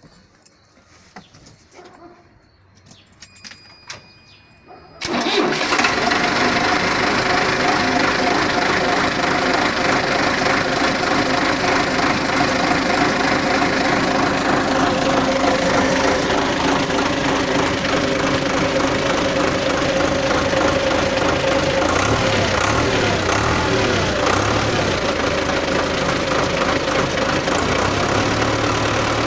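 MTZ-82.1 tractor's four-cylinder diesel engine starts suddenly about five seconds in, after a few faint clicks, and then runs steadily from cold on its just-fitted injection pump.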